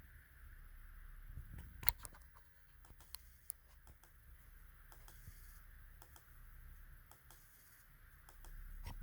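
Irregular faint clicks and ticks from under the keyboard of an Asus ROG Strix Scar 18 gaming laptop, with one sharper click about two seconds in, over a faint steady hiss. These are the strange noises the owner hears under the keyboard.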